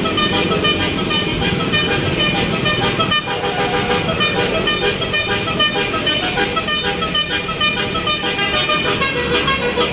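Bus's basuri telolet horn playing a melody of short, quickly changing notes over the rumble of the bus.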